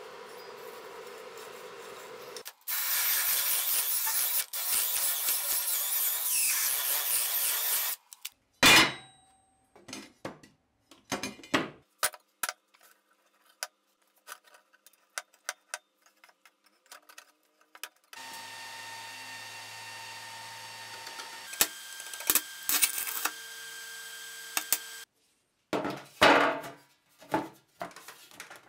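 A power tool in the workshop works on a steel part for about five seconds with a loud, even hiss, followed by a sharp loud knock and a run of scattered clanks and taps of metal and tools on the bench. Later a motor hums steadily for several seconds, and more knocks come near the end.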